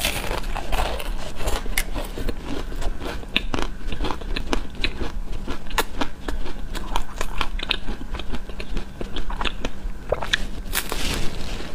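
Close-up eating sounds of a chocolate-coated ice cream bar: the hard chocolate shell cracks and crunches in many irregular sharp snaps as it is bitten and chewed.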